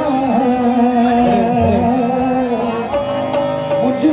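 A singer's long, wavering held notes with instrumental accompaniment, played loud through stage loudspeakers.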